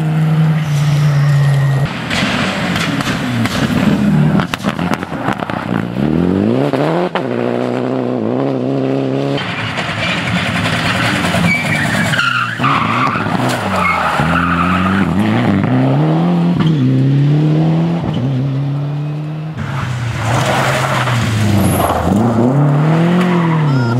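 Rally cars passing one after another at racing speed, among them an Audi Quattro, a Mitsubishi Lancer Evolution and an early BMW 3 Series. Each engine revs hard and rises and falls in pitch through gear changes and lifts, with tyres scrabbling and sliding on gravel and tarmac.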